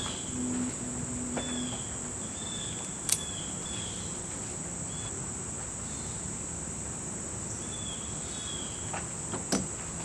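Steady high-pitched insect chorus, with a few short faint chirps and a single sharp click about three seconds in.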